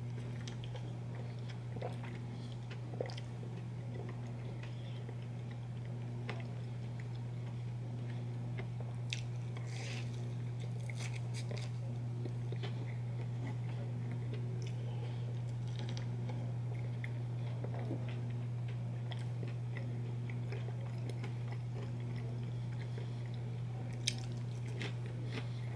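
Close-miked crunchy bites and chewing of a hash brown, with crisp crackles about ten seconds in and again near the end, over a steady low hum.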